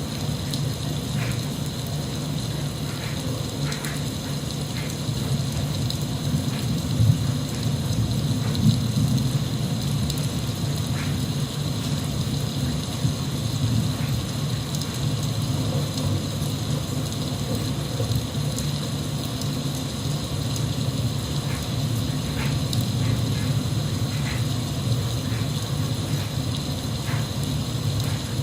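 Steady rain with scattered drop ticks over a continuous low rumble.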